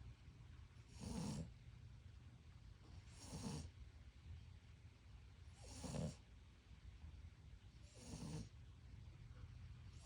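French bulldog snoring in her sleep: four short snores, one roughly every two and a half seconds.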